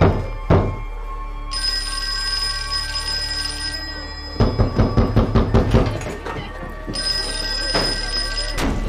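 Pounding on a wooden front door: two knocks at the start, then a fast run of about eight heavy blows near the middle. A sustained music score plays underneath.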